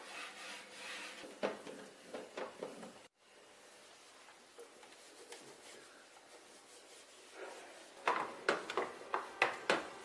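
Cloth rubbing and wiping over an espresso machine in soft strokes, cut off briefly about three seconds in. Near the end comes a quick run of louder wiping strokes.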